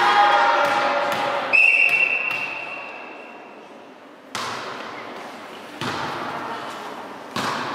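A referee's whistle blows once, a steady high note that echoes and fades in the sports hall, signalling the serve. A few seconds later a hand strikes a volleyball for the serve, followed by two more sharp hits on the ball as the rally is played.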